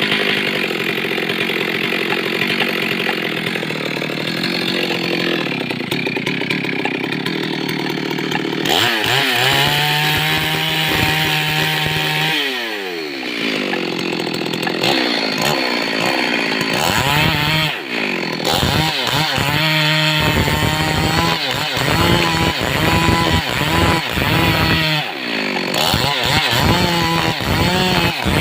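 Stihl MS382 two-stroke chainsaw cutting steadily through wood under load for the first third. The engine then runs free, its revs drop, and in the second half it is revved up and let down again and again in short blips.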